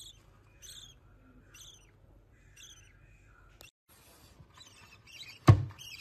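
Lovebird chick, 19 days old and hand-reared, cheeping with short, thin, high calls about once a second. Later come a hissing rustle and one sharp knock about five and a half seconds in, the loudest sound.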